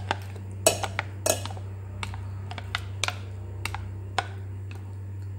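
About a dozen irregular light clicks and knocks of a utensil and mixing bowl against each other and the rim of a round metal pan as thick banana cake batter is scraped out, the loudest in the first second and a half.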